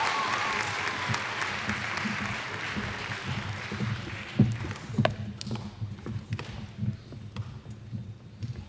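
Audience applause fading away over the first four seconds or so, followed by scattered thuds and taps of footsteps on the stage.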